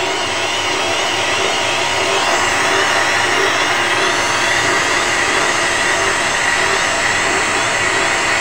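A small rotary grinder clamped in a lathe's tool post running with a steady whine, together with the lathe turning a WSK 125 gearbox main shaft under power feed. A faint wavering in the whine repeats about twice a second.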